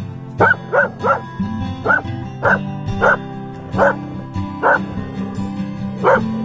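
Belgian Malinois barking, about ten short barks spread unevenly, some in quick pairs, over background acoustic guitar music.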